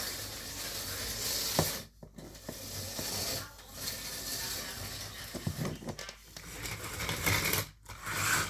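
Small electric slot car running around the track, its motor buzzing and its wheels rattling along the rails, coming and going in stretches of a second or two with brief drops between them.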